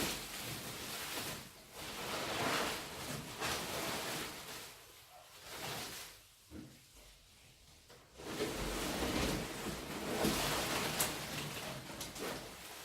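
Rustling and crinkling of packaging being handled and pulled off, in uneven bursts with a quieter stretch midway.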